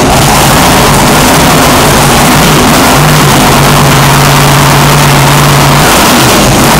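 Supercharged 454 Chevrolet big-block V8 of a ski race boat running very loud through open straight exhaust pipes. About three seconds in the revs are raised and held, then they drop back just before the end.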